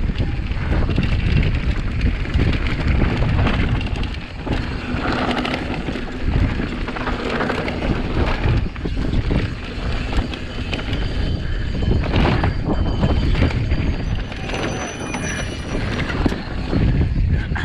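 Mountain bike ridden fast down a dry, dusty dirt trail: steady rushing wind and tyre noise, broken by frequent knocks and rattles as the bike hits bumps.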